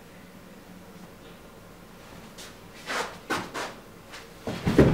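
Quiet room tone, then footsteps and clothing rustle on a carpeted floor from about halfway in, ending near the end in a heavy thud as a person drops to the floor.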